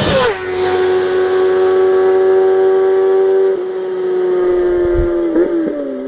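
A vehicle engine running at high revs. Its pitch drops sharply just after the start, then holds steady, with a brief wobble and a small dip near the end.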